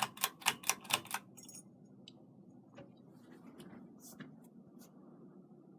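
Ceiling fan's metal pull chain swinging and clicking against the switch housing after being pulled to medium speed: a quick run of about six clicks in the first second, then a few faint scattered ticks. Under it the fan motor runs quietly with no hum.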